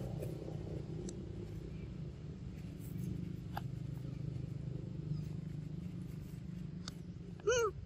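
One short, high call from a long-tailed macaque near the end, rising and falling in pitch, over a steady low rumble.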